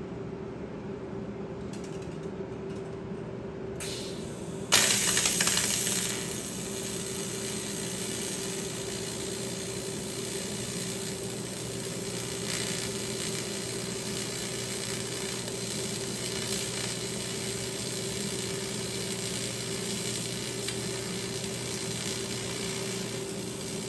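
Electric arc welding: a sudden strike about five seconds in, then the arc crackling and sizzling steadily as steel plugs are welded into bolt holes in a Humvee body panel.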